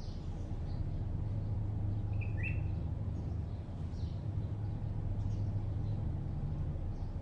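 Steady low hum of distant city traffic, with scattered short, high bird chirps over it and one clearer, slightly lower call about two and a half seconds in.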